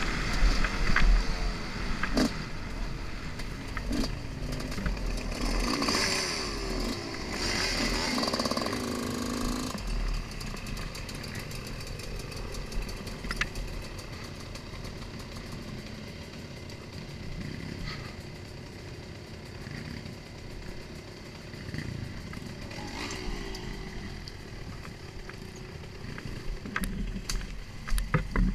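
Dirt bike engine running under the rider, revving up and down as it picks its way along a rough trail, heard through a helmet-mounted camera with low wind rumble on the microphone. It runs harder for the first ten seconds or so and quieter at lower revs after that.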